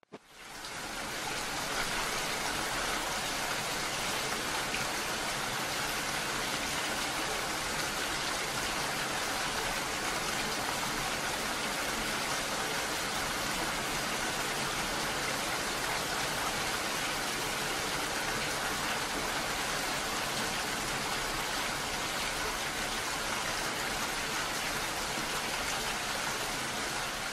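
Heavy rain falling steadily: a continuous, even hiss that fades in over the first second or two.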